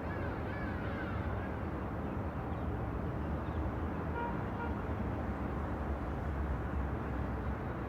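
City ambience: a steady low rumble of distant road traffic, with a few faint brief higher tones about four seconds in.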